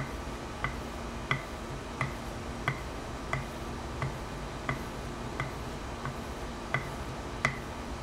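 Steel hand plane iron stroked back and forth flat on its back on a leather strop, polishing the back: a short click at a steady pace of about three every two seconds, one with each stroke. The clicks stop shortly before the end, as the iron is lifted off.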